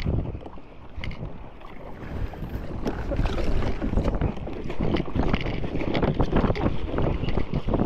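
Surfski paddle blades splashing through choppy sea water stroke after stroke, with water rushing along the hull and wind buffeting the microphone. It gets louder from about three seconds in.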